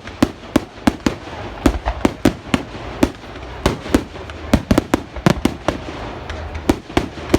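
Fireworks going off in a rapid, irregular string of sharp bangs, several a second, over a low rumble.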